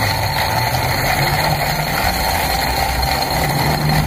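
Pickup truck's engine idling steadily, a low, even hum.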